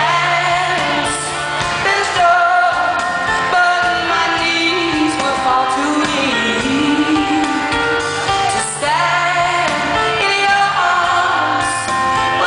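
Live pop music: a woman singing a ballad into a microphone over a live band, recorded from the audience in a large concert hall.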